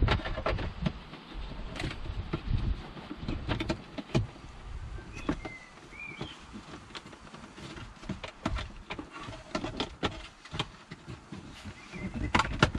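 Plastic rear trim panel of a BMW 1 Series centre console being pushed and wiggled against its plastic tabs and spring clips: irregular clicks, knocks and handling thumps as it refuses to seat because the clips are misaligned.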